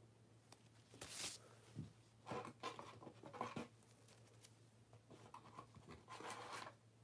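Faint off-camera handling noise: a few brief rustles and scrapes, each under a second, over a low steady hum.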